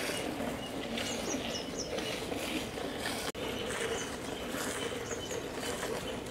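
Milk squirting in rhythmic streams from a cow's teats into a steel pot of frothy milk as she is hand-milked, about two squirts a second. Birds chirp in the background.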